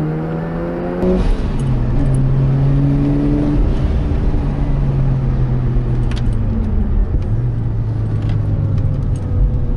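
Turbocharged Mazda RX-8's twin-rotor 13B rotary engine running under steady throttle, heard from inside the cabin. It steps up in level about a second in and eases down a little in pitch about seven seconds in, with a few light clicks and rattles in the cabin.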